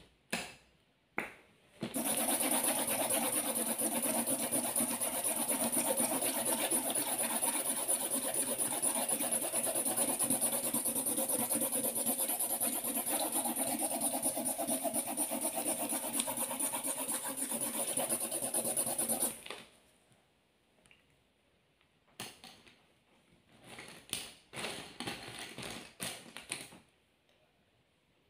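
Felt-tip marker scratching rapidly back and forth on paper in a dense, steady scribble. It stops suddenly about two-thirds of the way in, and a few slower, separate strokes follow.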